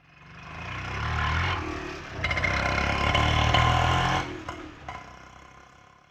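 Auto rickshaw's small engine revving up, easing off about two seconds in, revving again, then dying away.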